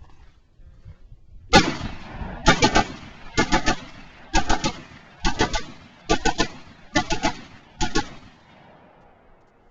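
AR-15 rifle firing: a single shot, then a string of quick groups of two or three shots, about one group a second, each with a short echo after it.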